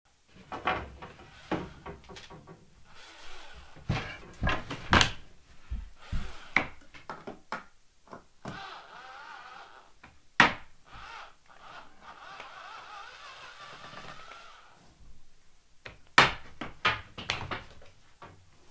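Wooden construction and assembly sounds: irregular knocks and thunks of wood being handled and fitted together, with a steadier stretch of working noise through the middle.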